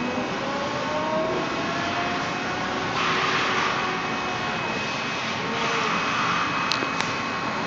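5-axis CNC machining centre running: a steady mechanical hiss and whine with tones that glide in pitch as the machine changes speed. The rushing noise swells twice, about three and six seconds in, and two sharp clicks come near the end.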